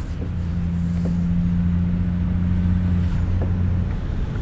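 A steady low motor hum that grows slightly louder, then dips near the end.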